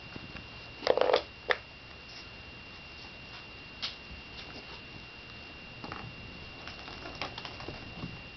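Kittens playing with a cork on a tiled floor: the cork and their paws knock and skitter on the tile, with a cluster of sharp knocks about a second in, another half a second later, then scattered light taps. A faint steady high whine runs underneath.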